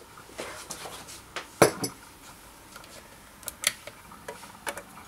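A metal teaspoon clinking against a ceramic mug: a few sharp clinks with a short high ring, the loudest about a second and a half in and two more a little after three and a half seconds. Lighter clicks follow near the end.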